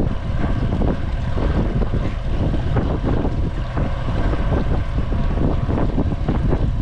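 Wind buffeting the microphone on an open fishing boat: a steady, gusting low rumble.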